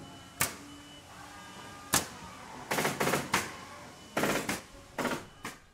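A series of sharp knocks or bangs: single ones about half a second and two seconds in, then three quick clusters of rapid hits.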